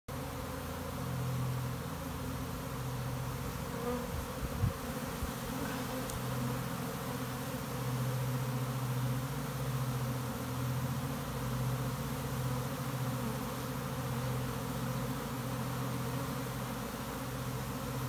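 Honey bees swarming out of a hive entrance, a dense crowd of wings making a steady, low hum. A few brief thumps come about four to five seconds in.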